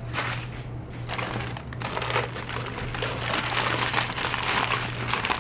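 Crumpled newspaper packing being pulled apart and unwrapped by hand, a dense crinkling and rustling that gets busier after about two seconds, over a steady low hum.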